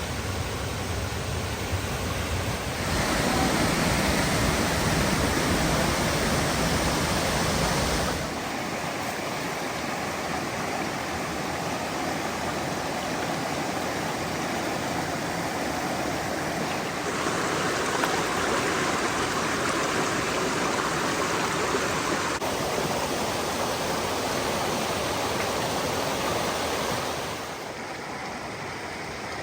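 Shirabad waterfall: water rushing and splashing in a steady roar, changing abruptly in level and tone several times.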